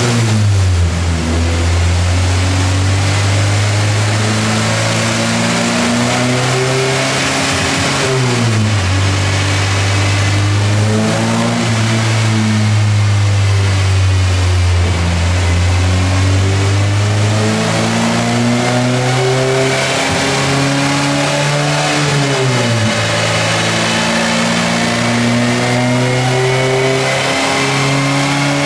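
Honda Civic four-cylinder engine running under load on a chassis dyno, its revs climbing slowly and then dropping quickly, about a second in, about eight seconds in, about 22 seconds in and again near the end, over a steady rush of noise.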